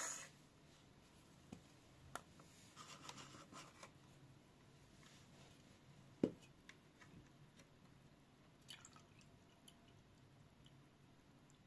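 Near silence with a few faint scattered clicks and taps, and one soft knock about six seconds in.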